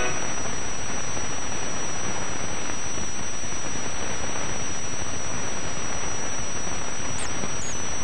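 Steady hiss of an old analog soundtrack with no programme sound on it, carrying a thin, high-pitched steady whine that wavers briefly near the end.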